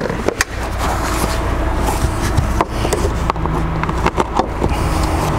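Irregular clicks, clinks and knocks of hand tools working on engine parts, over a steady low hum.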